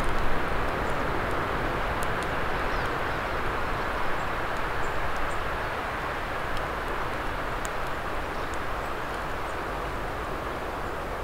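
Steady outdoor rushing noise, slowly getting quieter, with scattered faint pops and crackles from a wood campfire.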